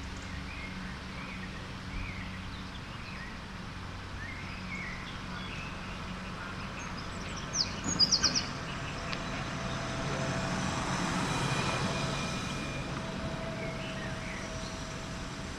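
Woodland birdsong: several birds chirping on and off, with one bird giving a loud, quick run of high notes about halfway through. In the second half a low rumble swells and fades.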